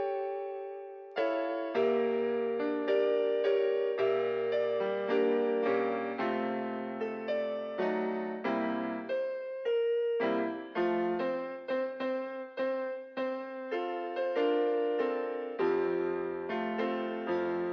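Piano-like keyboard playing slow chords and single notes, each struck note fading away.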